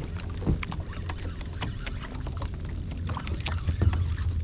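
Water lapping and slapping against plastic fishing-kayak hulls, with a steady low rumble and scattered small clicks and knocks.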